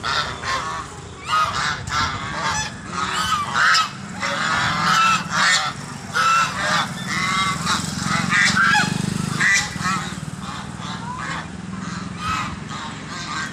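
A flock of white domestic geese honking in many short, repeated calls.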